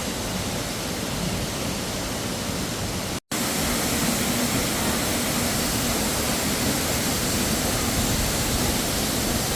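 Steady rushing of a waterfall plunging about 90 feet into a sandy basin. The sound cuts out for a moment about three seconds in, then returns slightly louder.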